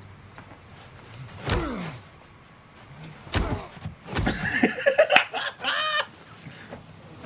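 A man laughing hard in loud, high-pitched whoops in the second half, with a couple of sharp knocks just before the laughter starts.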